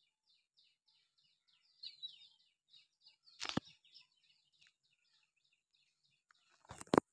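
A bird calling a rapid run of short, high chirps, about three or four a second, fading after about five seconds. Two sharp knocks cut across it, one midway and a louder one near the end.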